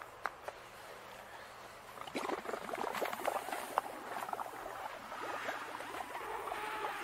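Air blown through a straw into a cup of soapy bubble solution, bubbling and crackling as the foam swells and pops. The dense crackling starts about two seconds in.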